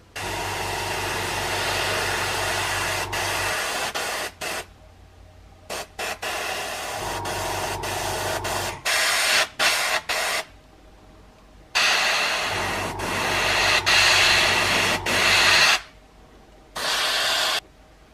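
Airbrush spraying paint in repeated bursts, the hiss starting and stopping sharply as the trigger is worked: a few long bursts of several seconds and a number of short spurts. A low hum sits under some of the longer bursts.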